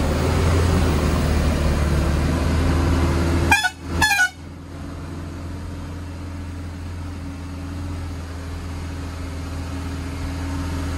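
A vehicle's engine and tyres droning steadily inside the cabin on a rough dirt road. A few seconds in, a car horn sounds two short toots about half a second apart. After that the drive noise eases off and stays quieter.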